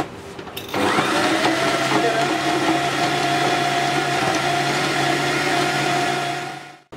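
Electric food processor mincing raw boneless chicken: the motor starts about a second in, runs steadily with a constant hum, and stops near the end.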